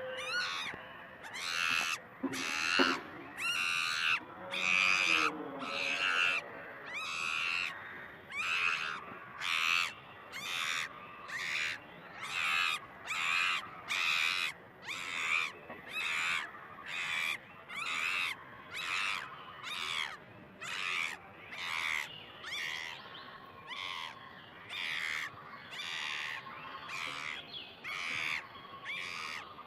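An animal calling over and over, a short pitched call about once a second.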